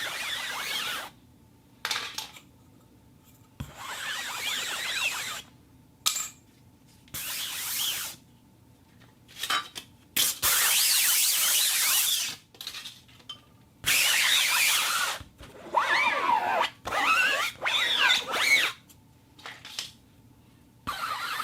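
Fabric being rubbed and rustled in repeated strokes of one to two seconds each, with short silent pauses between them.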